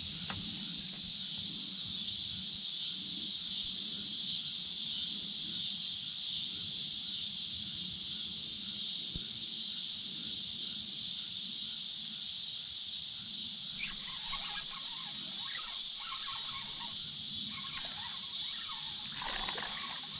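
Steady high-pitched chorus of insects (crickets or katydids) calling without a break, with a low steady rush beneath it. Scattered short rustles and knocks come in over the last six seconds or so.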